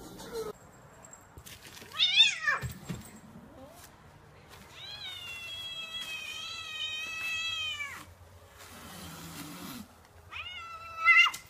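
Domestic cats meowing. A short, loud meow falls in pitch about two seconds in. A long, drawn-out meow wavers in pitch for about three seconds in the middle, and another loud meow rises in pitch near the end.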